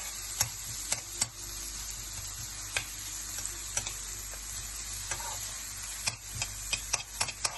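Chopped onion sizzling in hot oil in a pan as it is stirred, a steady hiss with scattered sharp clicks.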